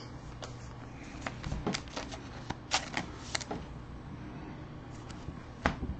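Baseball trading cards being handled and flipped by hand: a string of light clicks and snaps of card stock over the first three and a half seconds, then a pause, then a sharper snap near the end.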